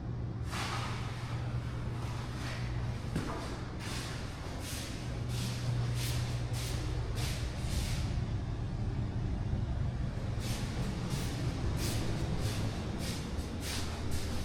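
A machine's steady low hum with repeated short hissing bursts, at times about two a second.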